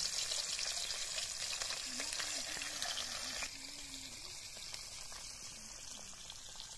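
Whole tilapia fish frying in hot oil in a kadai, a steady sizzle. About three and a half seconds in, the sizzle drops suddenly to a softer level.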